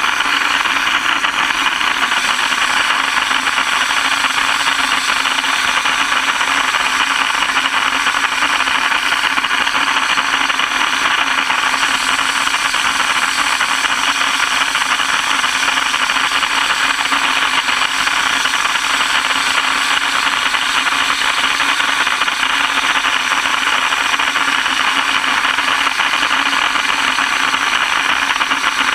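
Dry ice blaster nozzle running continuously: a loud, steady hiss of compressed air and dry ice pellets blasting a vinyl decal off a trailer panel.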